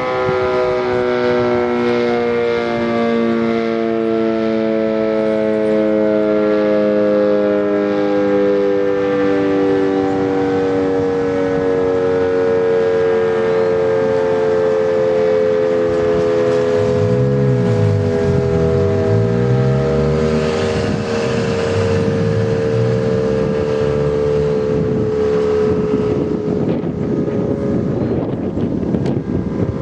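Sentry 20V2T two-tone outdoor warning siren winding down: its chord of tones slides slowly and steadily lower in pitch as the rotor coasts. A vehicle passes in the second half.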